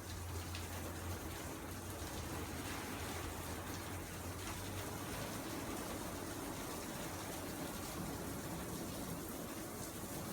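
Heavy rain falling, a steady even hiss, with a low steady hum under it for about the first half.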